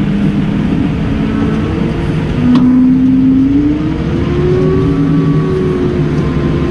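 Case Puma tractor's diesel engine running under load, its drone rising in pitch about halfway through, with a single sharp tick.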